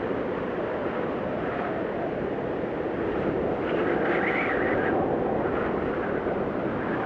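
Blizzard wind blowing in a steady rush, with a gust that rises into a higher whistle about four seconds in.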